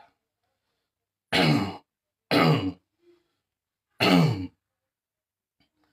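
A man clearing his throat three times, each a short voiced rasp of about half a second that falls in pitch, a second or so apart.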